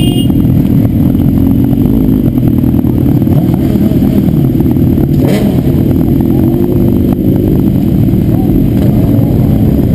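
Several motorcycle engines running close by as sport bikes pull away one after another, a loud, steady, low engine drone with some revving.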